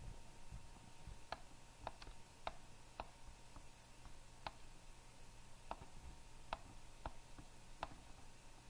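Faint, irregular clicks of a computer mouse button, about ten of them, as the button is pressed and released to draw pen strokes on a slide. A faint steady hum runs underneath.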